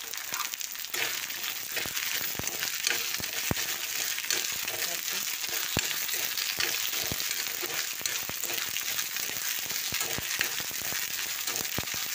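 Moringa drumstick pieces frying in hot oil in a kadai with a steady sizzle, and the scattered clicks and scrapes of a steel spoon stirring them against the pan.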